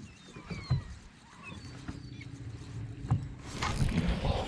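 Faint, short, high falling bird calls, over a low steady hum from about a second and a half to three seconds in. From about three and a half seconds in, a louder rushing noise with clicks.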